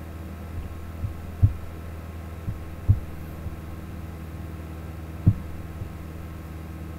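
A steady low electrical hum with several steady tones, and a handful of dull low thumps, the loudest about one and a half, three and five seconds in.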